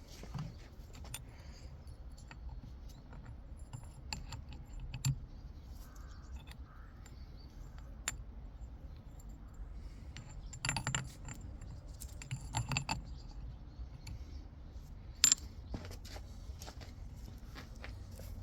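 Metal gearbox parts clinking and clicking as they are handled and set down: scattered light clicks, two quick clusters of clinks just past the middle, and one sharp clack a little later.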